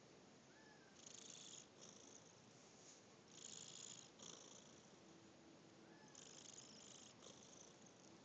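A sleeping pet snoring softly: three faint, hissing breaths, each drawn in and let out, coming about every two and a half seconds.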